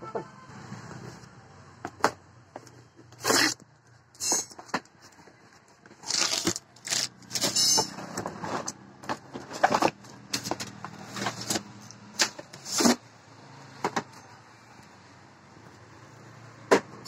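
Handling noises from unpacking a car alarm kit: irregular rustling, scraping and clicks of a cardboard box, packaging and a wiring harness being moved about, with the busiest stretch of rustling from about six to eight seconds in.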